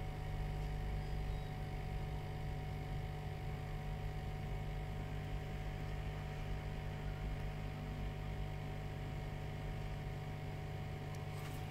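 Steady electrical hum with a faint hiss underneath; the soft scraping on the board does not stand out.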